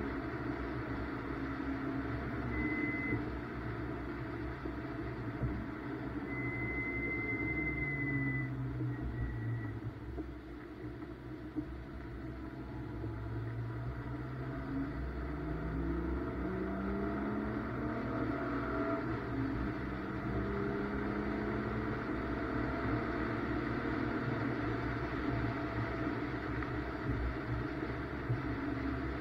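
BMW M2's turbocharged inline-six heard from inside the cabin. The revs drop about eight seconds in, climb steadily under acceleration from about twelve to seventeen seconds, then hold fairly steady. A high, steady electronic beep sounds briefly twice in the first nine seconds.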